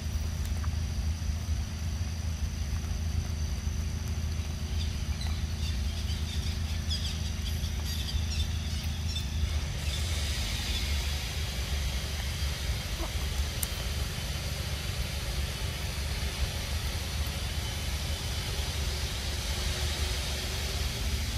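Steady outdoor background noise: a continuous low rumble with a thin high hiss above it that grows stronger about halfway through.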